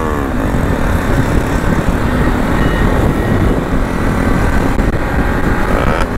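Bajaj Pulsar NS200 single-cylinder engine running at road speed, with loud wind rush on the microphone from riding. The engine note shifts in pitch right at the start, then holds steady.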